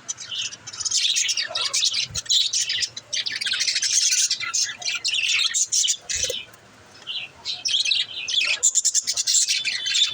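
Pet budgerigars chirping and chattering in a rapid, busy run of high chirps, with a short lull a little past the middle.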